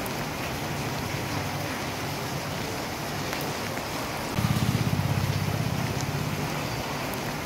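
Floodwater rushing steadily over a submerged river bridge. A low rumble comes in suddenly about four seconds in and then fades.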